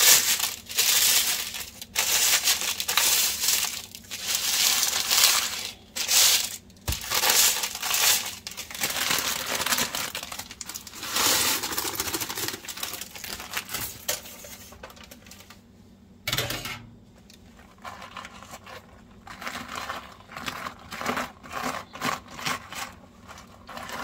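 Parchment paper crinkling and dry, crumbly dehydrated vegetable pieces rustling as they are rubbed and scraped off the paper. Past the middle it turns quieter, with scattered small clicks and taps.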